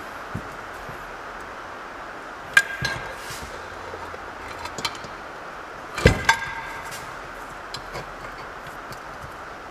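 Metal hand tools clinking and knocking against a Honda GX160 engine block while the connecting rod cap bolts are tightened. There are a few sharp clinks and one louder ringing knock about six seconds in.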